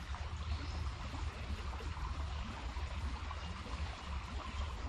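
A small rocky creek trickling and flowing steadily, an even wash of water sound with a low rumble underneath.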